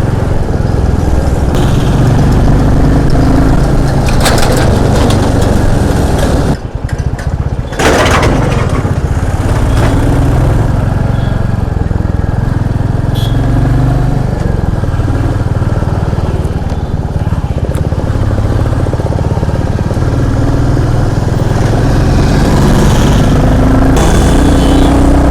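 Royal Enfield Classic 350's single-cylinder engine running under way, its pitch rising and falling with the throttle, with a brief dip in level about a quarter of the way in. It runs without the tappet tik-tik, its tappets freshly adjusted.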